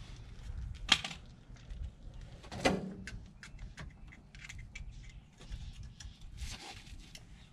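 Hand tools and metal brake parts being handled, a run of light metallic clicks and clinks with two louder knocks, a sharp one about a second in and a heavier one near three seconds in.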